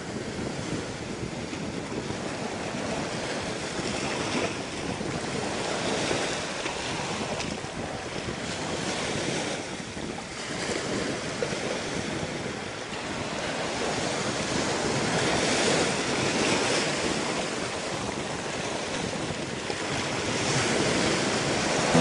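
Ocean surf: waves breaking and washing in, with wind, rising and falling slowly in loudness.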